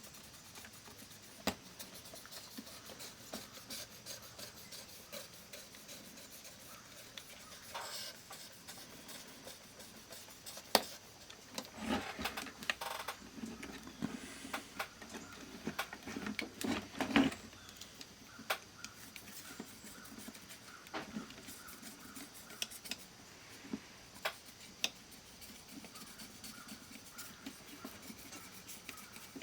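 Fiberglass pencil scrubbing the tarnished contacts of an analog multimeter's contact plate to clean them: on-and-off scratchy rubbing with scattered small clicks, in short spells that are busiest around the middle.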